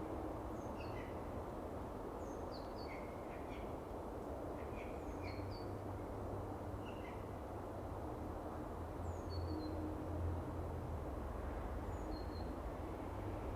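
Small songbirds chirping in short, scattered high calls, thinning out toward the end, over a steady low outdoor rumble.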